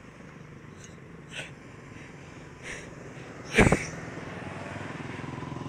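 Steady hum of road traffic, broken by three short puffs of noise, the last and loudest about three and a half seconds in. A vehicle grows louder near the end.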